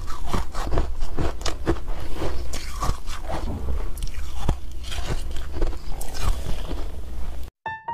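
Close-up biting and chewing of crunchy ice, a dense run of quick crunches. The crunching cuts off just before the end, and piano music starts.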